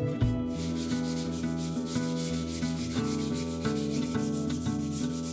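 Sandpaper rubbed back and forth by hand along a wooden board, a continuous scratchy sanding, under background music.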